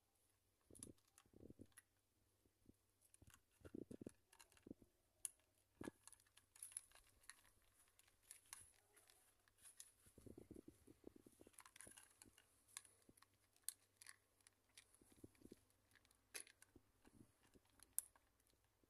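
Two cats chewing food from plastic bowls: faint, irregular short clicks and crunches of eating.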